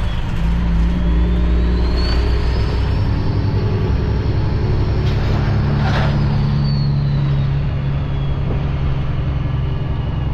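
Cummins ISX diesel engine of a Kenworth W900L semi-truck heard from inside the cab, pulling away and accelerating while the driver shifts up through the gears. A high whine rises and then falls over several seconds.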